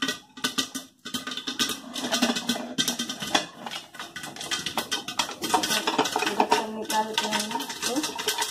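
Popcorn kernels popping inside a closed aluminium pressure cooker whose rubber gasket has been removed: a dense run of sharp pops, with a short lull about a second in.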